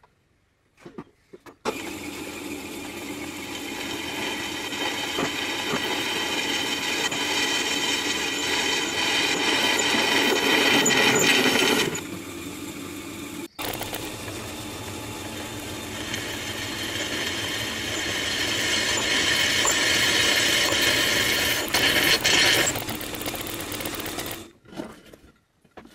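Power drill with a twist bit boring through a steel angle-iron flange, the motor running and the bit cutting into the steel. It cuts in two long stretches of about ten seconds each, each growing louder as the bit goes deeper, with a short break about halfway.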